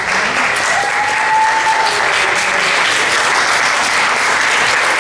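Audience applauding steadily, with one brief high note about a second in that rises slightly and then holds.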